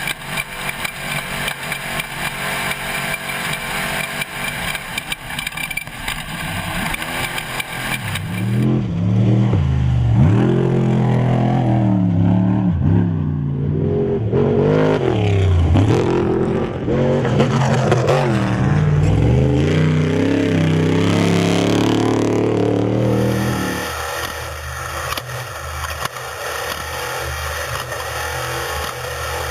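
Off-road race vehicle engines running hard, their pitch rising and falling as they rev and accelerate, loudest through the middle. The sound changes abruptly about eight seconds in and again near the end.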